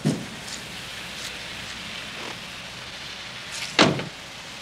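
Outdoor street ambience, a steady hiss, with a short dull thump just at the start and a louder thump nearly four seconds in.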